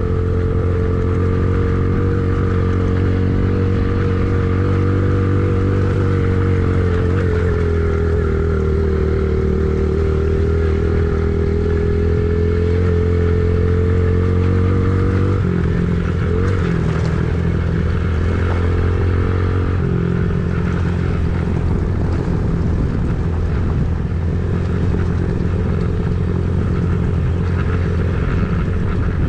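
An engine running steadily, its note shifting a little about halfway through.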